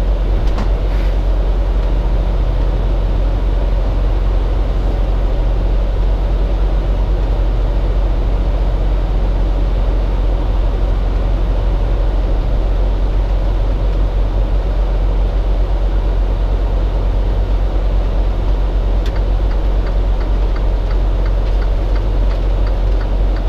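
Steady drone inside the cab of a Freightliner Cascadia semi truck under way: diesel engine hum mixed with road and tyre noise, with a few faint clicks and rattles.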